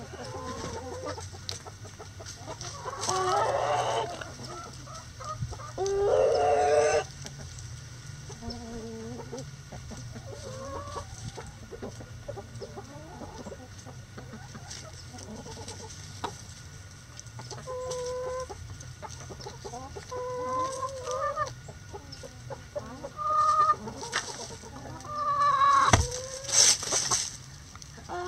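A flock of backyard chickens clucking, with louder drawn-out calls about three and six seconds in and a burst of loud calls near the end.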